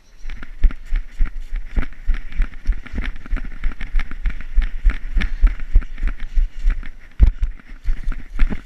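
A person running over grass and fallen leaves, footfalls thudding about three times a second with a steady rustle over them.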